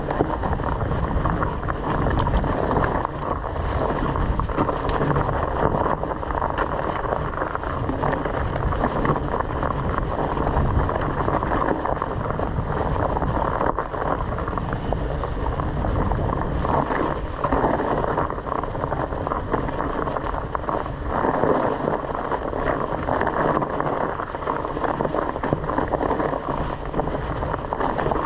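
Wind buffeting an action camera's microphone over a continuous rumbling rush from a bike riding a rough dirt trail. The loudness flutters up and down throughout.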